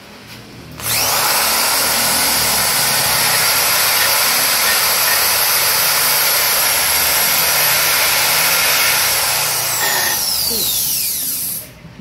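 High-speed electric power tool switched on about a second in and running steadily at full speed, then switched off about ten seconds in and winding down with a falling whine, and started again right at the end.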